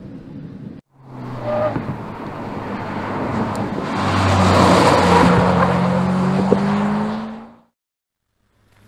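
Hyundai IONIQ 5 N electric car driving hard past at close range, its N Active Sound+ synthesized engine note rising in pitch over loud tyre noise. The sound breaks off briefly about a second in and cuts out suddenly near the end.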